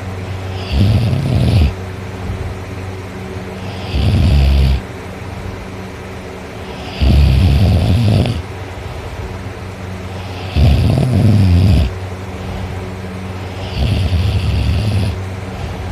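A person snoring: five loud snores, each about a second long and roughly three seconds apart, over a steady low hum.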